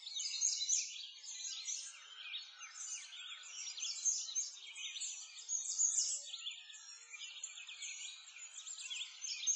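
A dense chorus of many small birds chirping at once, quick high chirps overlapping one another.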